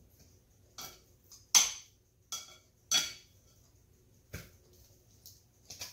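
Metal kitchen tongs clinking against a glass bowl while turning raw short ribs: about eight short, sharp clinks at irregular intervals, the loudest about one and a half seconds and three seconds in.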